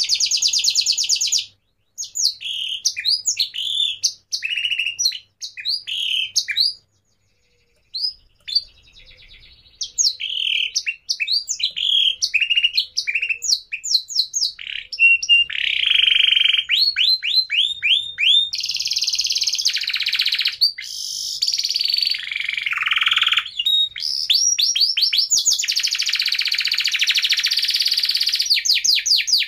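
A small bird singing almost without pause: fast chirps, quick rising sweeps and rapid trills, with a short break about seven seconds in.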